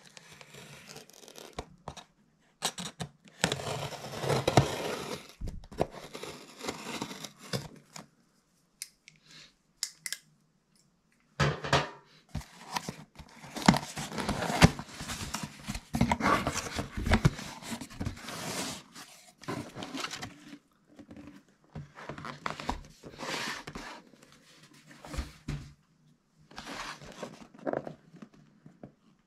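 A cardboard shipping box being opened: a utility knife slits the packing tape, the tape is ripped off the cardboard, and the flaps and packaging rustle, in irregular bursts with short pauses.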